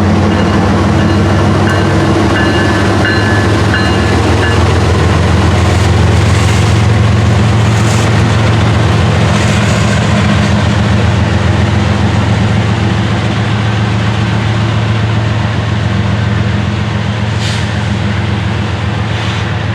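Diesel freight train running: a steady, loud locomotive engine drone with cars rolling on the rails. A faint high squeal sounds in the first few seconds, and a few sharp clanks come later.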